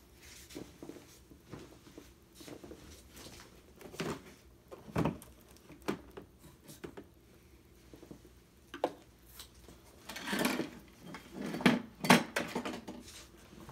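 Handling noises on a workbench: scattered light knocks and clicks as small objects are picked up and set down, with a stretch of rustling and clattering near the end.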